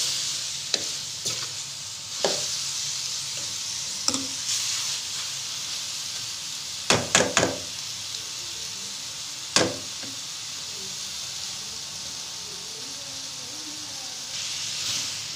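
Aloo methi (potatoes, fenugreek leaves and tomatoes) sizzling steadily in a metal pan on a gas stove while it is stirred with a steel ladle. The ladle clinks against the pan now and then, with a quick cluster of knocks about seven seconds in and one more a couple of seconds later.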